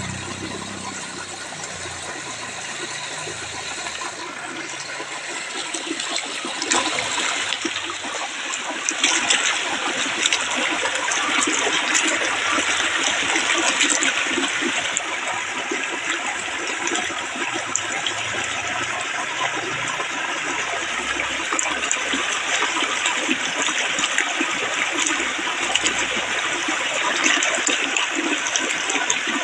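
Water flowing steadily in a natural stream, a constant sound of running water that grows a little louder over the first several seconds and then holds even.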